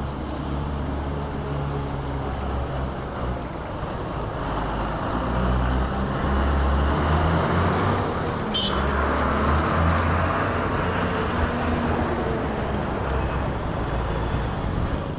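Street traffic: a motor vehicle's engine running close by, growing louder in the middle, with two brief high squeals.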